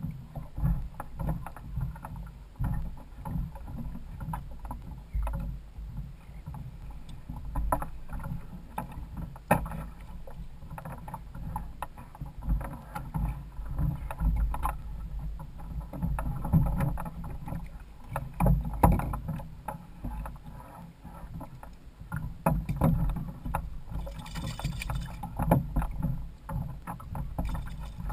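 Sea water slapping and sloshing against a kayak's hulls under a steady low rumble, with frequent short knocks and splashes, including a hooked jack splashing at the surface beside the hull.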